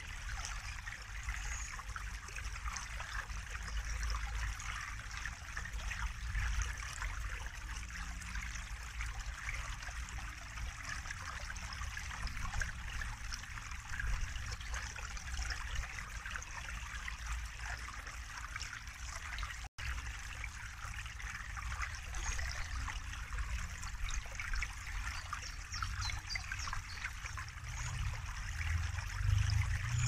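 Small woodland stream trickling and splashing over a low cascade: a steady babble of running water with a low rumble beneath. One very brief dropout about two-thirds of the way through.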